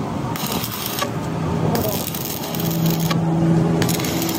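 Busy workshop background noise with a few light metallic clinks, and a low steady hum for about a second past the middle.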